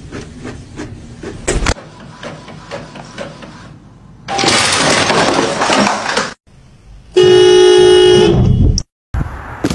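A car horn blares once, a steady tone of about a second and a half near the end, and the loudest sound here. Before it come soft clicks and taps, then about two seconds of loud rushing noise.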